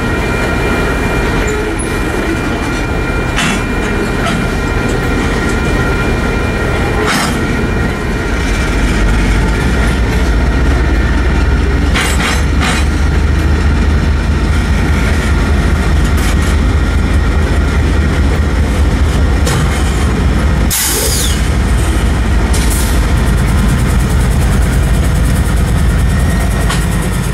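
Freight train rolling slowly through a grade crossing, its railcar wheels clanking and now and then squealing, while the crossing signal bells ring steadily. A deep diesel rumble grows louder about eight seconds in as the BNSF locomotives draw near.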